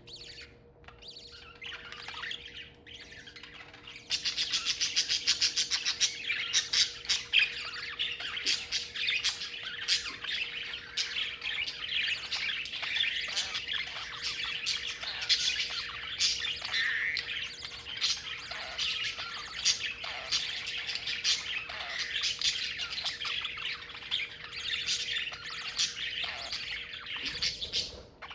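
Budgerigars chattering with rapid chirps and harsh squawks, quieter at first and then busier and louder from about four seconds in.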